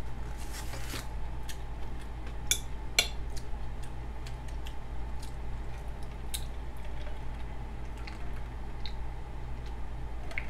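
A fork clicking and scraping against a takeout food container while eating, a scatter of sharp clicks with the strongest a little under three seconds in.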